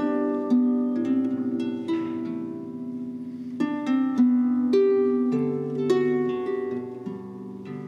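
Celtic harp played solo: a plucked melody over lower notes, each note struck sharply and left to ring as it fades. The playing softens for a couple of seconds in the middle, then swells again.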